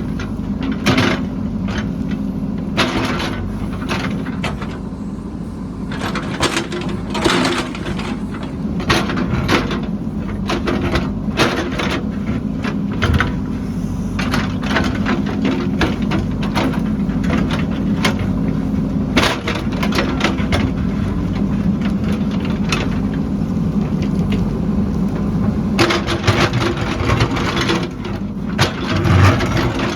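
A heavy construction machine's engine running steadily, with frequent sharp cracks and clanks over it, as of earth and debris being broken and moved.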